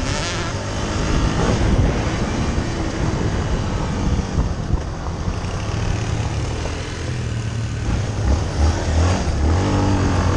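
Yamaha TT-R250 dirt bike's single-cylinder four-stroke engine running under load, its note rising and falling as the throttle opens and closes through the corners, over a steady rush of wind and track noise.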